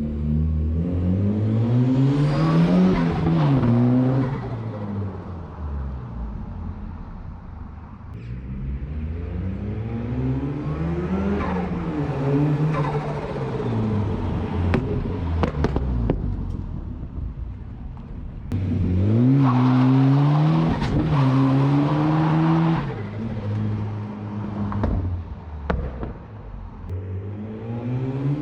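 Volvo 940 turbo's turbocharged four-cylinder engine pulling hard under boost. Its revs climb and drop in about four runs, with short dips at gear changes, and a few sharp cracks fall between pulls.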